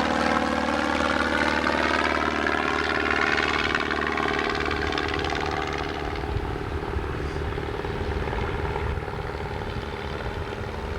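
Aeronca Champion 7DC's Continental C-85 four-cylinder engine and propeller droning at climb power, rising slightly in pitch over the first few seconds, then fading steadily as the plane climbs away.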